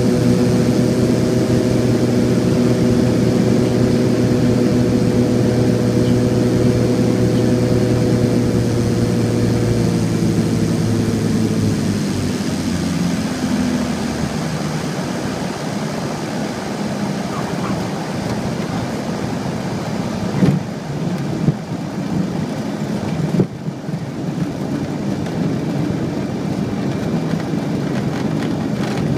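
The Beechcraft 58 Baron's twin piston engines drone steadily, heard from inside the cockpit. About twelve seconds in, the engine note sinks and fades as power comes back for landing, leaving a steady rush of air and rolling noise. A few sharp knocks come between about twenty and twenty-four seconds in, as the wheels meet the runway.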